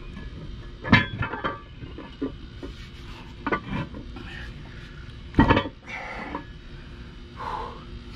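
Metal clinks and knocks of hand tools and steel parts being worked on a mower's blade hardware: a handful of separate strikes, the loudest about five and a half seconds in.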